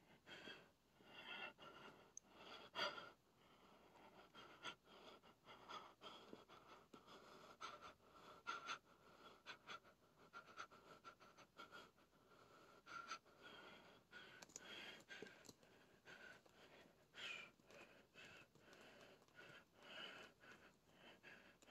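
Near silence with faint handling noise: soft taps, scuffs and rustles of a hand and phone against a cardboard box, with a slightly louder tap about three seconds in.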